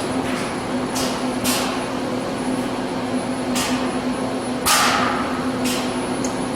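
Robotic spot-welding line: a steady electrical hum, with short hissing bursts about once a second. The loudest burst comes nearly five seconds in.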